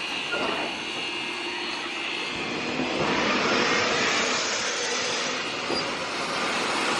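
Steam locomotive running: a steady roaring hiss that swells about three seconds in and eases back before the end.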